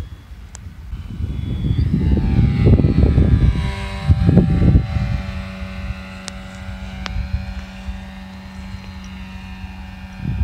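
Small electric motor and propeller of a foamboard RC Cessna 172 whining in flight. The whine rises in pitch about two seconds in, under heavy wind rumble on the microphone. From about five seconds in the rumble drops away and a steady whine remains.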